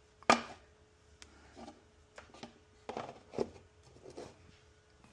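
Plastic handling sounds as the xTool F1 Ultra's touchscreen controller is pressed into a 3D-printed plastic holder to test the fit: a sharp click about a quarter second in, then a few small, faint clicks and rubs.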